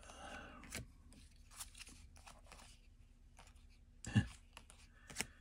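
Trading cards being handled and flipped through: faint rustling and small clicks, with a sharper tap about four seconds in and another about a second later.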